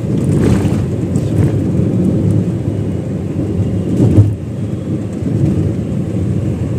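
Road noise in a moving car: a steady low rumble of tyres, engine and wind, with passing traffic and a brief louder thump about four seconds in.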